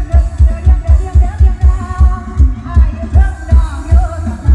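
Dance music with singing, played very loud through the speaker stack of a Thai sound truck (rot hae), with a heavy booming bass beat about three times a second.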